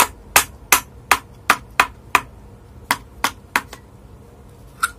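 A small bushing-type exhaust fan motor being taken apart by hand: about a dozen sharp knocks as its end cover and rotor are worked loose, in two quick runs with a short pause around two and a half seconds in and one last knock near the end.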